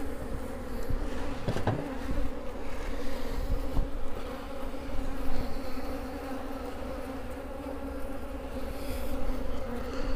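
Honeybee colony in an open hive, many bees buzzing together in a steady low hum, with a few brief knocks from handling the hive.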